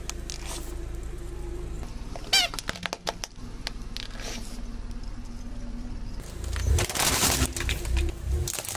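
Hard yellow plastic toy cracking and crunching as a car tyre crushes it, a loud burst lasting about two seconds near the end. About two seconds in, a short high squeak with a few clicks.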